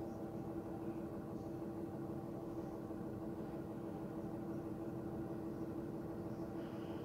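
A steady mechanical hum that holds one unchanging pitch throughout.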